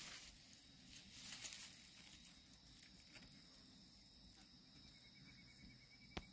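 Faint outdoor ambience: insects droning steadily at a high pitch, with light rustling in the first second or two and a single sharp click near the end.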